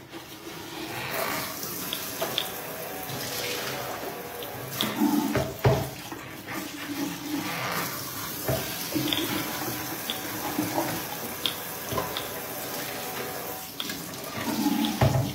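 Water running at a kitchen sink while a stainless-steel electric hot-water pot is handled and tilted. A few sharp knocks of the pot and its lid come through the running water.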